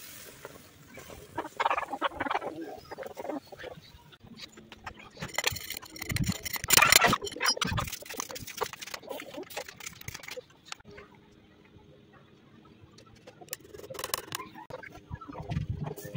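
Hammer blows and metal clinks on a freshly sand-cast metal piece, a run of sharp knocks and clatter loudest about six to eight seconds in, with scraping and crumbling sand.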